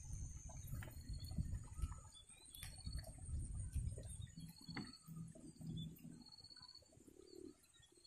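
A flock of munias calling faintly: short, high, rapidly repeated trilling notes, several times over, against a low rumble.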